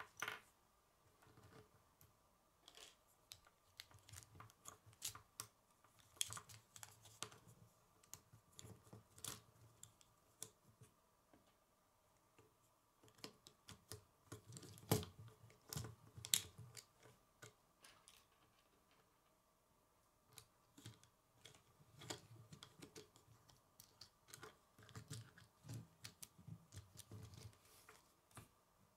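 K'nex plastic rods, connectors and wheel parts clicking and snapping together as they are fitted by hand. The clicks come in irregular clusters with short pauses, and the sharpest snaps come about fifteen and sixteen seconds in.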